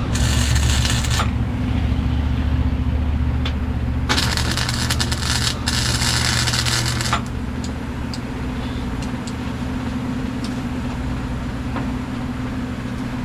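Steady low machine hum, with three bursts of harsh scraping noise, each a second or so long.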